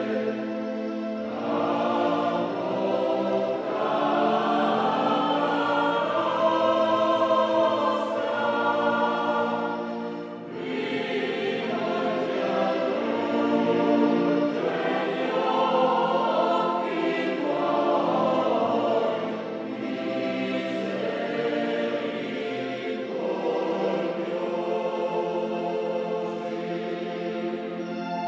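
Small choir singing a hymn with Yamaha DX7 synthesizer keyboard accompaniment, in three long phrases with short breaks about 10 and 19 seconds in.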